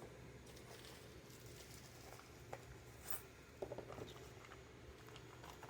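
Near silence: low room hum with a few faint clicks and light rustles from about halfway in, as of small parts being handled.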